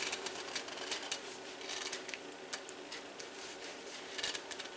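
Faint, scattered light clicks and taps of kitchen utensils being handled at the counter, with a slightly louder cluster of clicks near the end.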